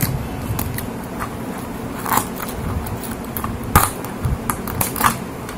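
Scissors snipping through the hard underside shell of a spiny lobster: an uneven run of sharp crisp clicks and cracks, with louder cracks about two seconds in, near four seconds and again about five seconds in.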